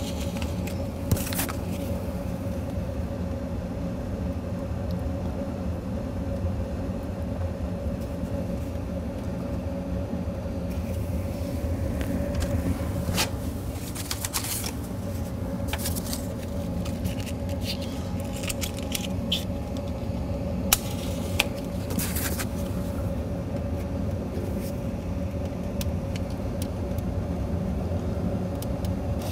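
Safety matches struck on the box several times, short scratchy strikes over a steady machine hum with a held mid-pitched tone from the running log boiler's fan.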